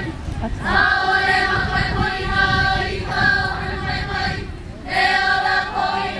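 A chorus of voices singing a song together in long held phrases, with two short breaks between phrases.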